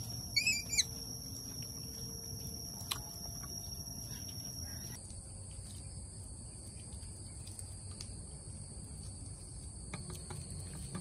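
Steady high-pitched insect drone, with a short chirping call of a few quick notes about half a second in. Faint ticks of quail eggshells being cracked and peeled.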